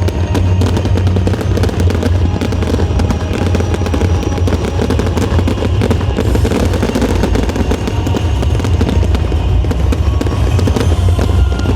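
Fireworks crackling and popping in a dense, unbroken stream of sharp reports, with music or drumming underneath.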